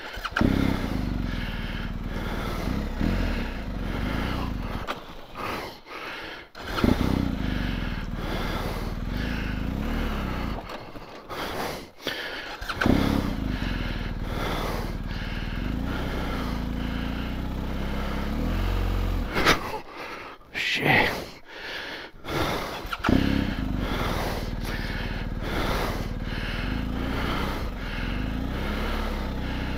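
BMW R 1250 GS Adventure's boxer-twin engine, fitted with an Akrapovic exhaust, running at low revs. It cuts out several times and is restarted each time: the rider is stalling it in water while trying to find the clutch's bite point.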